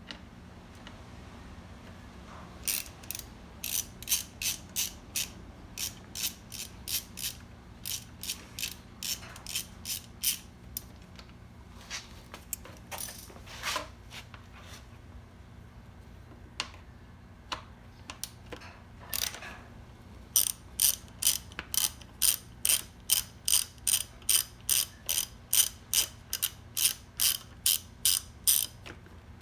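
Ratcheting hex (Allen) driver clicking in repeated runs of sharp, evenly spaced clicks, about two a second, as bolts are backed out. There is a pause in the middle with a few scattered clicks, then a louder run toward the end.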